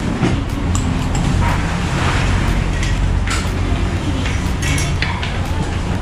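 Spoon and fork clinking and scraping against a plate while eating: several light, separate clinks over a steady low background rumble.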